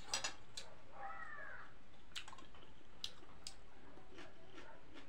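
Mouth sounds of eating spicy instant noodles: wet smacks and clicks of chewing, with the cutlery now and then clicking on the plate. About a second in comes a short high call that rises and falls.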